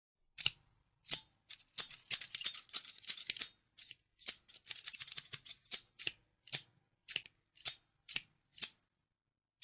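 Scissors snipping: short crisp cuts, a quick flurry of snips in the first half, then single snips about twice a second toward the end.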